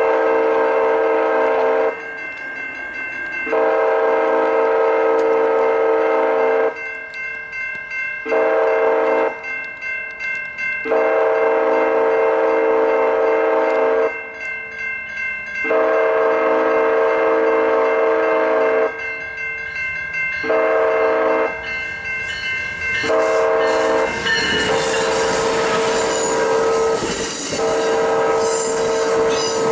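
Siemens SC-44 Charger's K5LA train horn sounding the grade-crossing signal, long, long, short, long, repeated as the locomotive closes on the crossing, with the crossing's electronic bells ringing in the gaps. In the last few seconds the horn runs on over the rumble and clatter of the passenger cars rolling past.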